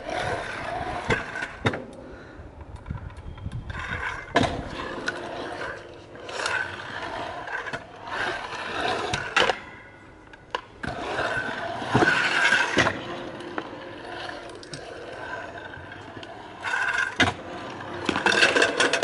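Stunt scooter riding on a concrete half-pipe: small hard wheels rolling on concrete in surges, broken by sharp knocks and scrapes of the scooter on the concrete and a metal rail.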